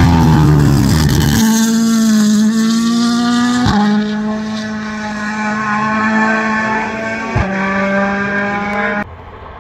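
Rally car engine at full throttle: it passes with a falling pitch, then holds a high-revving note as the car accelerates away. The note breaks twice, about three and a half and seven and a half seconds in, for quick gear changes. The sound cuts off abruptly near the end.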